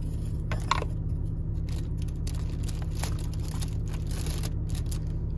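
Car cabin noise, a steady low rumble from the road and engine, with scattered rustling and clicks over it.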